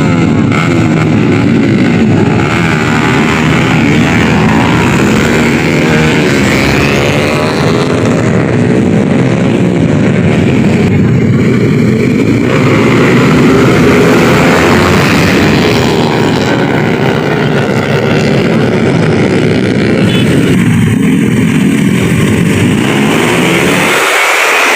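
Several small motorcycle engines running and revving together, their pitches rising and falling over one another without a break.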